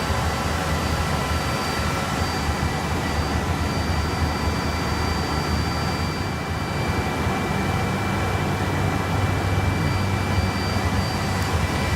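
Steady whir of data-centre equipment fans, including the running Cisco Nexus 3172PQ switch's cooling fans: an even rushing noise with a low hum and several constant high whining tones, unchanging throughout.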